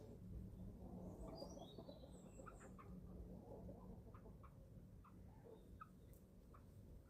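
Young chickens, about eleven weeks old, peeping faintly and now and then while feeding, with a few higher chirps between about one and three seconds in over a low steady background hum.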